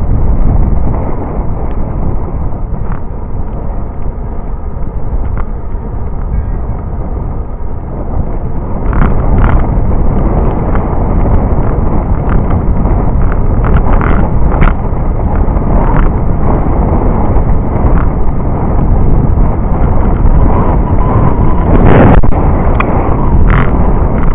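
Wind buffeting the microphone of a camera riding on a moving bicycle, a loud, steady low rumble that grows stronger about a third of the way in, with scattered sharp clicks and knocks.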